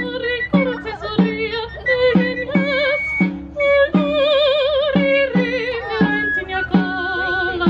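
Basque folk dance music: a melody with wavering held notes over a steady low beat of about two a second.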